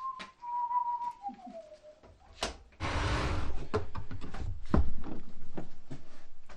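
A man whistling a short tune. About three seconds in, a brief hiss, then a steady low rumble with a fast ripple and several knocks.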